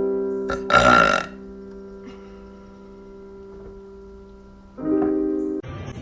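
A woman's burp, short and loud, about a second in, over a held keyboard chord that slowly fades. A second chord sounds near the end.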